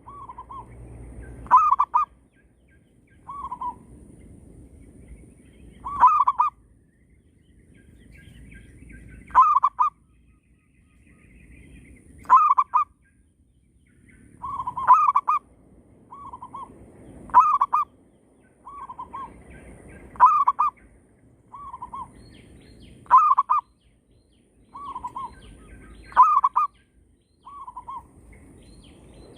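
Zebra doves cooing back and forth: a loud trilled cooing phrase repeats about every three seconds, and a fainter, shorter coo answers in the gaps between.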